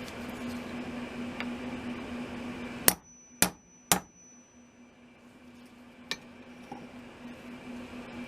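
Three sharp hammer strikes on metal about half a second apart, the second leaving a high ring for over a second, then one lighter knock a couple of seconds later. These fit driving the loose handle pins out of the Estwing hatchet with a hammer and punch.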